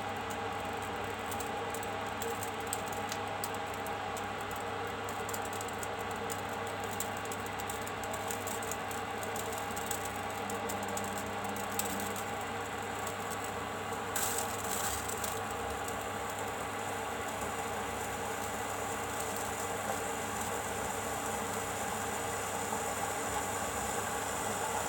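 Induction cooktop switched on for testing, running with a steady hum from its cooling fan and coil, with a few faint ticks and a brief rustle about midway.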